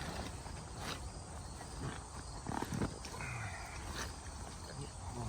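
Wind rumbling on the microphone, with the rustling and dull knocks of a heavy vinyl pool liner being folded over by hand.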